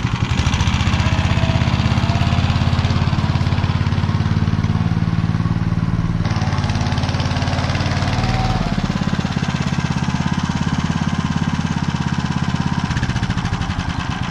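Motor Sich walk-behind tractor's engine running steadily under load as it pulls a harrow, being run to warm up. Its note shifts slightly in pitch about six and nine seconds in and eases off near the end.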